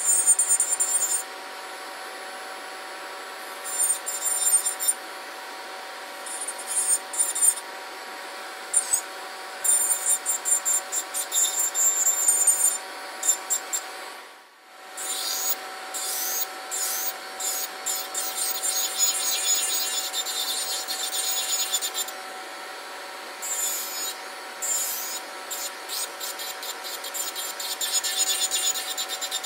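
MelodySusie Scamander nail e-file with a coarse carbide safety bit, at about 18,000 rpm, grinding gel topcoat and acrylic off a nail in short, repeated passes: a high, gritty filing sound that starts and stops. Under it the DoLike nail dust collector's fan hums steadily on its higher power setting. Everything drops out briefly about halfway through.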